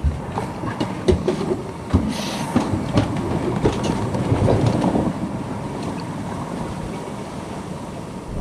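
Sailboat underway: a steady rush of water and hull noise with irregular knocks and creaks from the boat.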